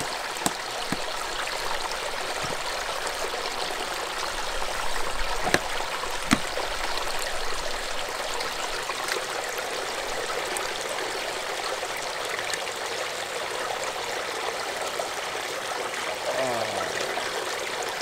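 Small, shallow desert creek trickling steadily over rocks, with a few light clicks and knocks in the first half.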